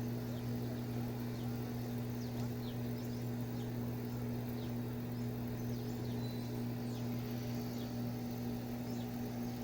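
Outdoor ambience: many faint, short, falling chirps of small birds scattered over a steady low hum.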